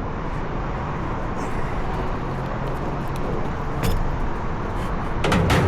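Steady outdoor background rumble. About four seconds in there is a single sharp click, and near the end a short cluster of knocks, like hand tools or parts being handled.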